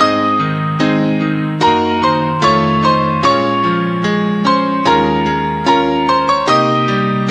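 Slow ballad music led by an electric piano: a melody with chords beneath, each note struck and then fading, about two or three notes a second.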